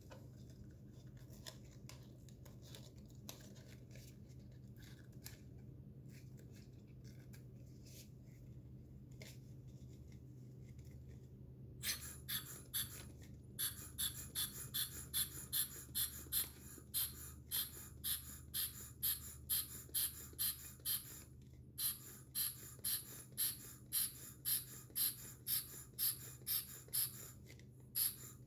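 Faint handling clicks as a balloon is worked onto a plastic bottle's nozzle. About twelve seconds in, the homemade bottle air pump starts being squeezed rhythmically, about twice a second. Each squeeze and release gives a short hiss of air through its one-way valves as the balloon fills.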